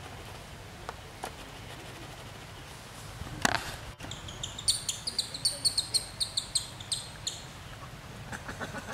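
A bird calls a rapid run of short, high chirps, about four a second, for nearly three seconds in the middle. A single short sharp noise comes just before it, and a faster, softer run of lower chirps begins near the end.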